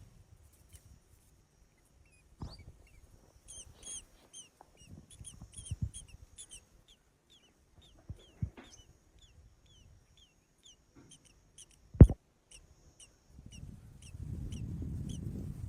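Small birds chirping: a run of short, high, falling cheeps, a couple a second, for about eight seconds. A single sharp knock, the loudest sound, comes about twelve seconds in, and a low rumbling noise sets in near the end.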